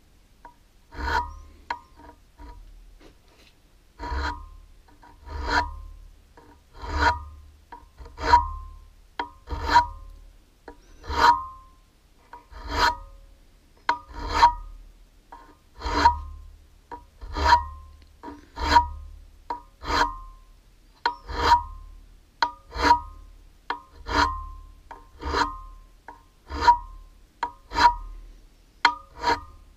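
Flat hand file rasping in repeated strokes across a high-tensile aluminium workpiece held in a lathe chuck, about one stroke every one and a half seconds, each with a light metallic ring.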